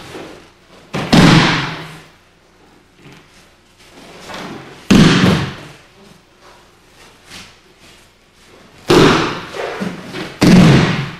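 Thrown aikido partner's body hitting the mat in breakfalls: four loud thuds, one about a second in, one near the middle, and two a second and a half apart near the end, with quieter rustling of gi cloth between.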